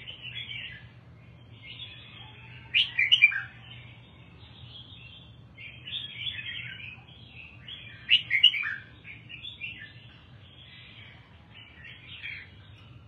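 Caged red-whiskered bulbul singing: a run of warbling, chattering phrases, with two louder bursts of song about three and eight seconds in.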